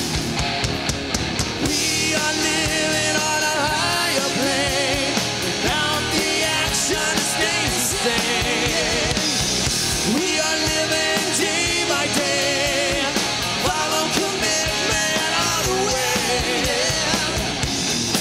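Live rock band playing, with a man singing over a pounding drum kit and the rest of the band.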